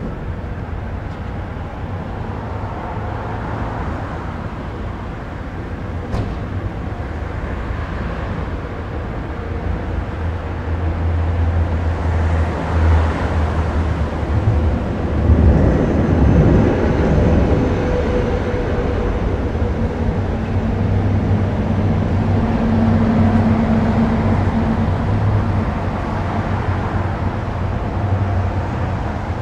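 Street traffic: cars and SUVs driving past close by over a steady low rumble, the loudest pass about halfway through.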